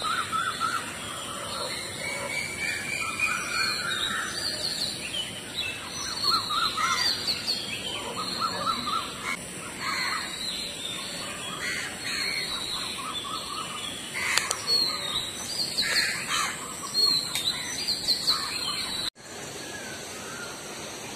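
Several birds chirping and calling in repeated short trills over a steady high hiss. The sound cuts out briefly about 19 seconds in and resumes more quietly.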